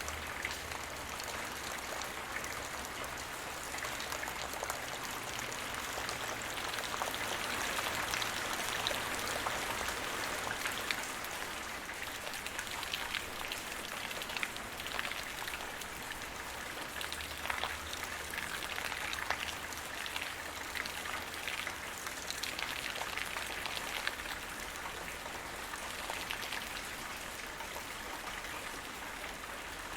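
Light rain shower falling on the ground, a steady patter of many individual drops with a gentle swell in intensity about a third of the way through.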